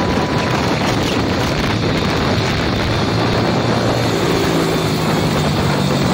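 Motorcycle riding at speed: wind rushing over the microphone with the engine running underneath, its steady drone coming through more clearly from about halfway.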